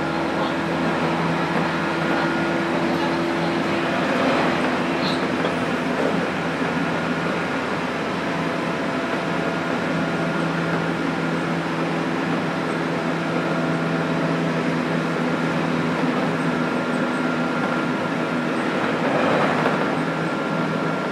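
Interior running sound of a JR Kyushu 817 series 3000-subseries electric train motor car at steady speed: wheels rolling on the rail with a steady hum from the Hitachi IGBT inverter-driven traction motors.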